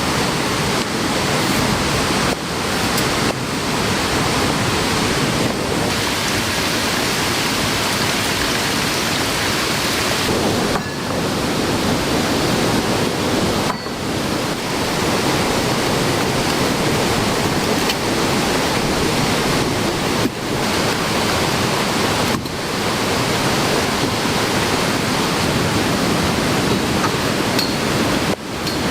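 Heavy rain together with a swollen, fast-running stream: a dense, steady rush of water that dips briefly a few times.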